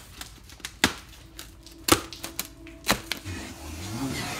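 Sharp snaps about a second apart as plastic packing straps are cut off a cardboard box, then scraping against the cardboard near the end.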